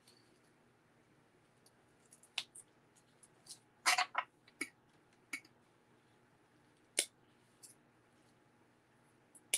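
Small spring-loaded thread snips clicking as they are picked up and snipped, with a quick cluster of sharp clicks about four seconds in and a few lighter single clicks scattered around it.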